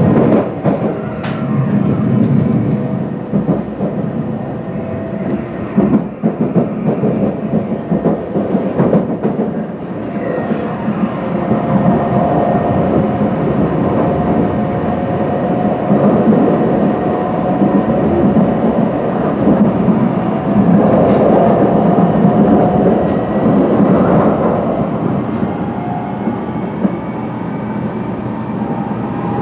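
Cabin noise inside a moving Shinkansen Hikari train: a steady rumble of the running train, with a run of clicks and knocks through roughly the first ten seconds and a faint whine from about twelve seconds in.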